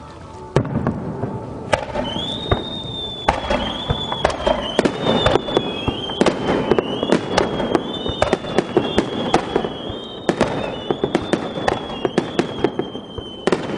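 Fireworks display: a rapid barrage of sharp bangs and crackling shell bursts starts about half a second in and keeps going. A high wavering whistle-like tone runs over the bangs from about two seconds in.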